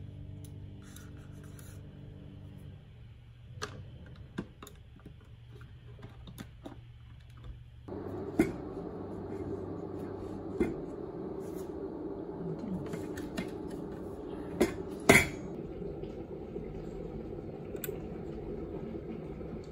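Clinks and knocks of metal kitchenware being handled: tongs in an electric kettle, then a small stainless steel travel pot and its lid. The sharpest are two knocks about fifteen seconds in. A steady hum sets in about eight seconds in.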